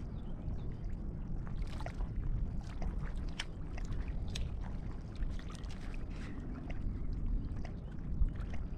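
Steady low rumble of wind on the microphone with water lapping at the shore, and scattered faint clicks and rustles as a hooked fish is handled on the ground.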